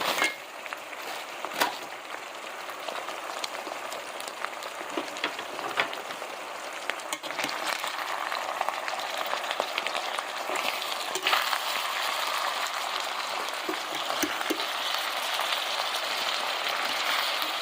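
Ground beef, peppers, onions and broccoli florets sizzling in a frying pan, with a few sharp clicks in the first couple of seconds. The sizzle gets louder about halfway through.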